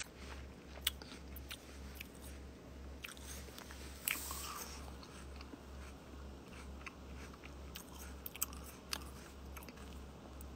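A person chewing a mouthful of fresh apple: crisp crunching and sharp little clicks, with a louder spell of crunching about four seconds in.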